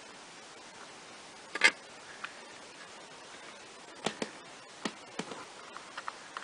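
Irregular light clicks and taps as fingers handle the plastic parts inside an opened ozone generator, one sharper click about a second and a half in and a cluster of smaller ones near the end, over a steady hiss.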